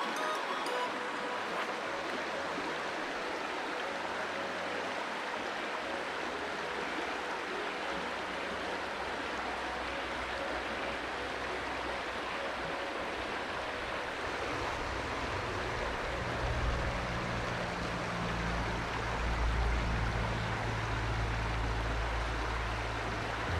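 River water rushing steadily, with a low rumble coming in about two-thirds of the way through.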